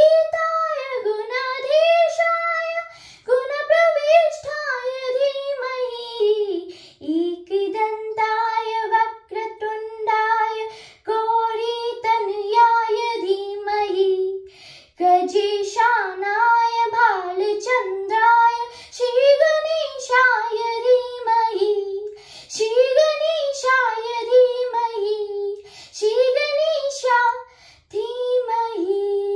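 A girl singing a Sanskrit hymn to Ganesha, unaccompanied, in sung phrases of a few seconds each with short breaks for breath.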